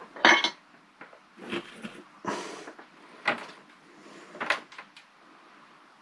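Metallic clatter as a soldering iron is lifted out of its metal holder, loudest near the start, followed by several lighter knocks and clinks as the iron and circuit board are handled on the bench.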